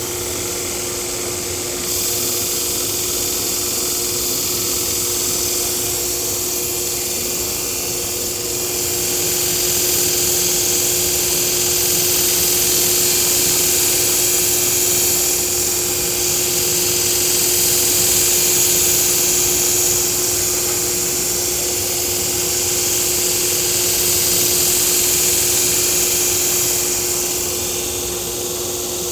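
Belt grinder running with a steady motor hum, and a hissing grind as a stainless-clad nakiri blade is passed against a fresh silicon carbide belt to thin it. The grinding grows louder through the middle and eases off near the end.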